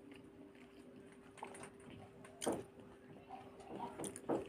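Close-miked mouth sounds from an eater at the end of a meal: a few sharp lip smacks and clicks, the loudest about halfway through and two more near the end, over a steady faint hum.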